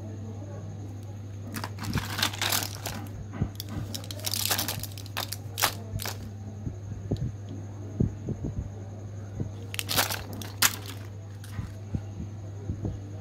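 Plastic candy wrappers and a foil-backed blister pack crinkling as they are handled, in several short bursts with light clicks and taps of hard plastic between them, over a steady low hum.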